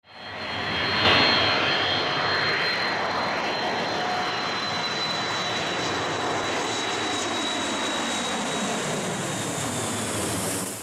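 Boeing 727-021's three Pratt & Whitney JT8D turbofans passing low overhead on landing approach: a loud jet roar with a high whine that slowly falls in pitch. The sound fades in over the first second.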